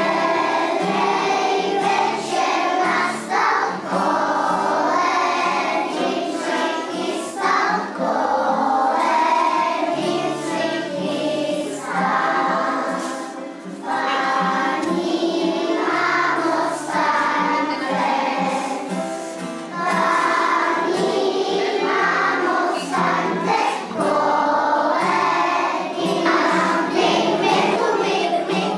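A group of young children singing a song together, accompanied by an acoustic guitar.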